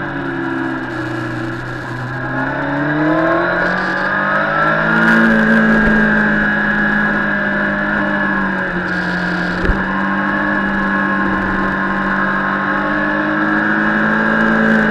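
Sport motorcycle engine heard from onboard on a race track. The engine note falls in the first second or so, climbs again from about two seconds in, then holds high and fairly steady at speed. A brief knock comes about ten seconds in.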